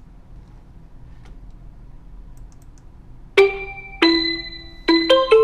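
Quiet room tone for about three seconds, then break-time background music starts: a melody of bright, sharply struck ringing notes, about two notes a second.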